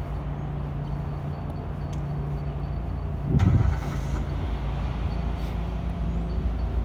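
City street traffic: a steady low engine hum from motor vehicles, with a brief louder rumble that starts sharply about three and a half seconds in.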